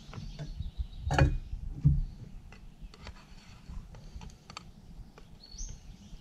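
Two knocks about a second in as a small frying pan's lid is lifted off and set down, then light clicks and scrapes of a utensil stirring food in the pan.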